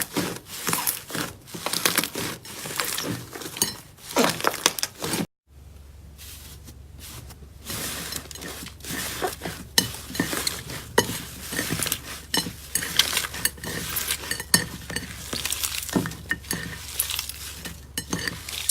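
Hands squishing, poking and stretching slime, making irregular wet clicks, crackles and pops. There is a short break about five seconds in, and after it a low steady hum runs underneath.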